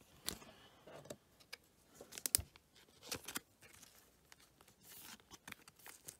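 Faint crinkling and light clicks of a thin plastic penny sleeve being handled as a trading card is slid into it, with a sharper tap about two seconds in.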